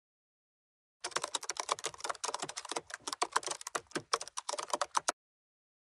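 Keyboard typing sound effect: a fast, uneven run of key clicks that starts about a second in and stops abruptly about a second before the end, as an on-screen caption is typed out letter by letter.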